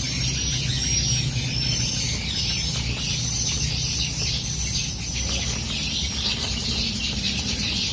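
Birds chirping in a run of short, high whistled notes, over a steady high-pitched hiss and a low rumble of outdoor ambience.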